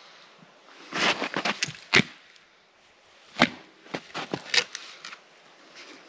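An axe chopping into a piece of firewood standing on a stump chopping block: a handful of sharp wooden knocks over the first five seconds, the loudest about three and a half seconds in.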